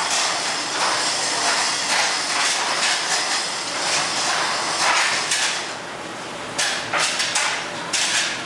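Tire-shop workshop noise: a steady loud hiss, with several sharp knocks or clanks in the last two seconds.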